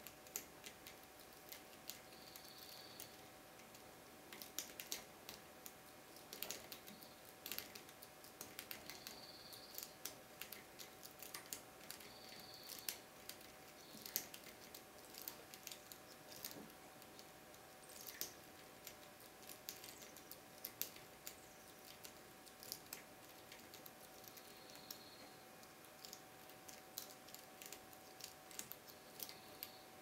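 Lock pick and tension wrench working the pins inside a Keso 2000 euro cylinder: faint, irregular small metallic clicks and ticks, a few at a time with short pauses between.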